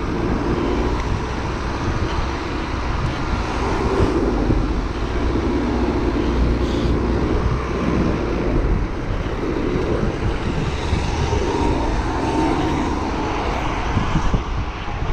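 Steady rumbling wind buffeting a chest-mounted action camera's microphone while cycling, with street traffic under it.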